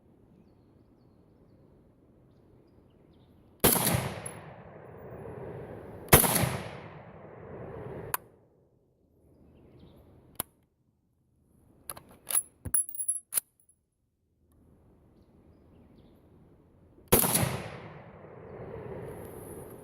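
Ruger Mini-14 firing three single shots of .223 Remington cast-bullet handloads, each crack followed by a long echo, the first two about two and a half seconds apart and the third after a pause of about eleven seconds. Between the second and third shots come several sharp metallic clicks and clacks: the light loads do not cycle the action, so it is worked by hand.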